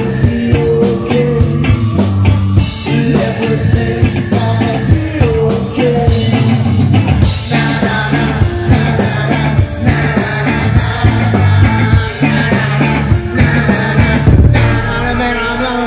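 Live rock band playing loud: electric guitars, bass and drums with steady cymbal strokes, and a sung vocal. The cymbals drop out briefly near the end.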